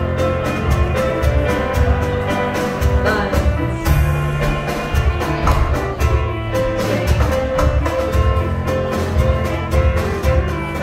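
Live contra dance band playing a dance tune with a steady beat.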